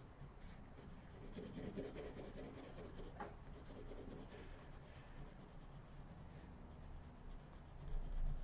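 Pencil scribbling on paper, faint and continuous, as a small area (a drawn dog's nose) is coloured in with back-and-forth strokes. A soft low bump is heard near the end.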